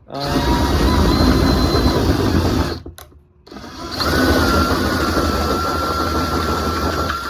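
Power drill running a 1-inch hole bit into a surfboard to cut the leash plug hole. It runs in two long stretches with a short stop between, the motor whine rising at the start of each and then holding steady.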